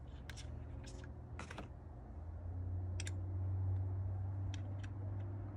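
Scattered light metal clicks and taps as a limb bolt is set back into a recurve bow riser and turned with an Allen wrench, about half a dozen spread out, over a low hum that swells in the middle.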